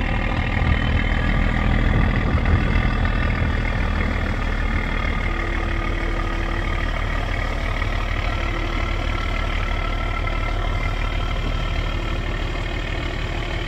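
Barge diesel engine running steadily on a test run, a little louder in the first few seconds and then even.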